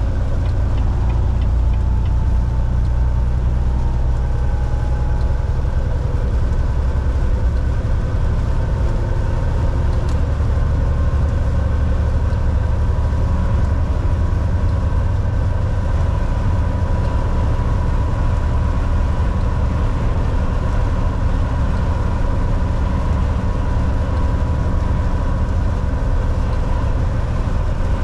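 Semi-truck on the move, heard from inside the cab: a steady, low diesel engine drone with road noise and no change in speed.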